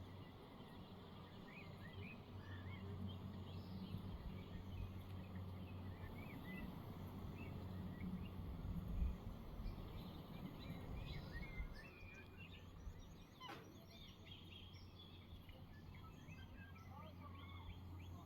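Outdoor ambience: scattered faint bird chirps over a steady low rumble, with one sharp click about thirteen seconds in.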